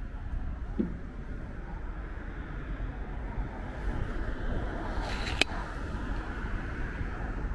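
Road traffic going by in a steady rumble, swelling a little about two thirds of the way through, with one sharp click about five and a half seconds in.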